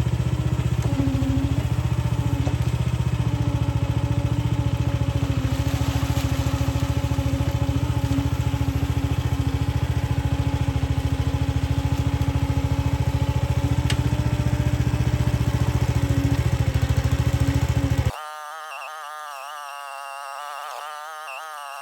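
Gasoline engine of a mini excavator running steadily under load, with a held tone from its hydraulics that wavers slightly as it digs. About three seconds before the end the engine sound cuts off abruptly and a much quieter stretch of wavering tones follows.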